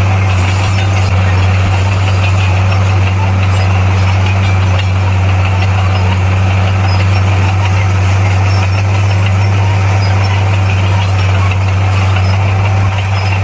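Bulldozer's heavy diesel engine running steadily with a deep, even hum and no change in speed.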